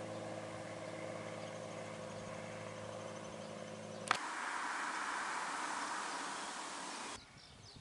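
Steady low motor hum of several even tones that cuts off abruptly about four seconds in. A louder steady rushing noise follows and stops suddenly near the end.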